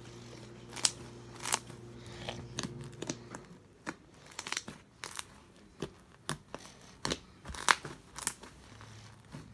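Fingers poking and squeezing fluffy glitter slime with small beads in it, making irregular sharp pops and crackles.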